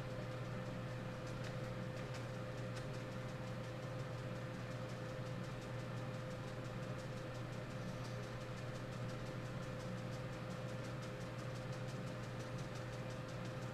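A steady low machine hum with a fainter steady tone above it, and faint light ticks throughout.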